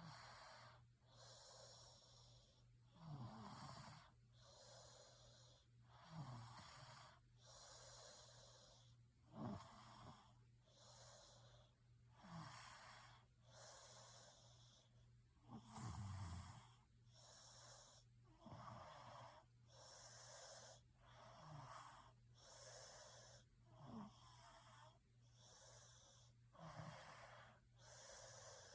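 A person snoring faintly in a slow, even rhythm, about one breath every three seconds: hissing breaths, each with a short, low, rattling snore that drops in pitch.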